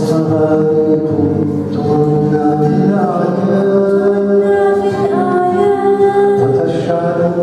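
A young girl singing into a microphone, with long held notes, accompanied by an acoustic guitar.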